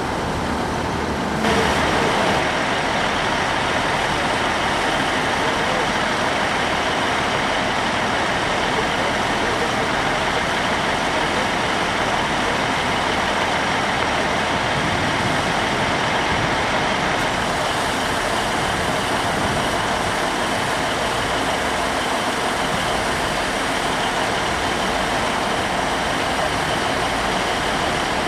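Diesel locomotive running as it draws slowly toward the platform, a steady even noise throughout. The sound steps up suddenly about a second and a half in.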